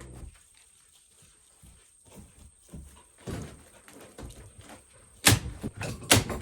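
Scattered light knocks and rustles, then two loud sharp thuds about a second apart near the end.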